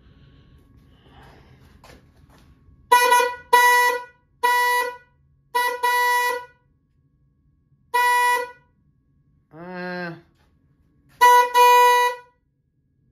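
Cheap $5 eBay electric horn, hanging unmounted on a Honda Rebel 1100, sounded in about eight short honks, some in quick pairs, each one steady flat tone. It is sold as a 300-decibel horn and falls well short of that claim. A man's voice makes a brief sound between honks, about ten seconds in.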